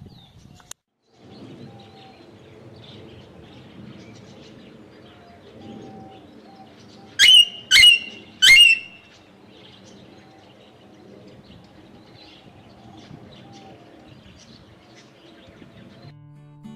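Aviary birds chirping, with a parrot giving three loud, short, rising squawks about seven to nine seconds in.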